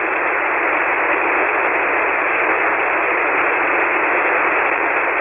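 Steady hiss of band noise from an HF ham radio receiver on 40-metre single-sideband, with no voice on the frequency, the hiss held to the narrow speech range of the receive filter.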